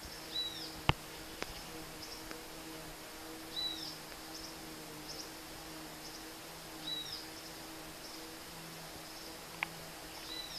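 Outdoor ambience of a steady high insect buzz, with a short chirp repeating about every three seconds. A low steady hum runs beneath, and a few sharp clicks sound, the loudest about a second in.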